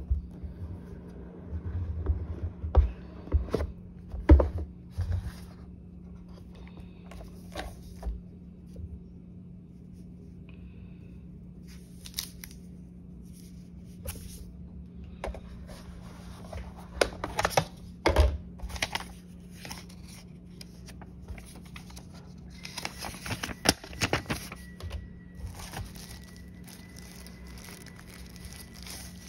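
Hands handling a smartphone's retail packaging: the cardboard box and its inserts knocked and slid, and plastic film and paper crinkling and tearing in scattered spells, busiest a little past two-thirds of the way through. A steady low hum runs underneath.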